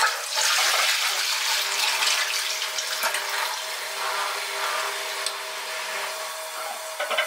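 Toilet flushing: a steady rush of water into the bowl that starts at once and slowly eases off over several seconds.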